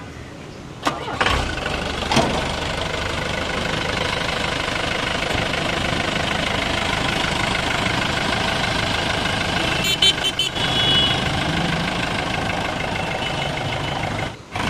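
Force Trax Cruiser's diesel engine starting about a second in, then idling steadily. A brief burst of sharp clicks comes about ten seconds in.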